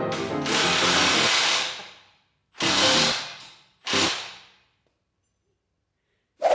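Power tool run in three bursts, each dying away: one of about two seconds, then two short ones about a second apart.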